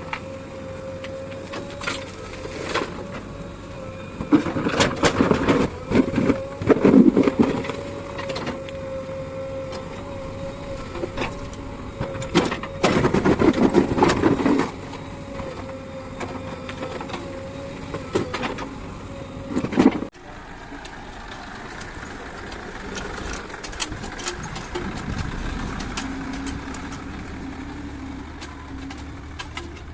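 Heavy diesel road-construction machinery running with a steady engine hum, broken by loud bursts of noise about 4 to 8 seconds in and again around 12 to 14 seconds. About 20 seconds in the sound cuts suddenly to a quieter, lower engine sound.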